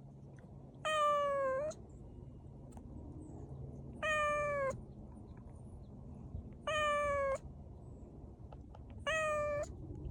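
A cat meowing four times, evenly spaced about every two and a half seconds, each meow short and level in pitch, dipping slightly at the end.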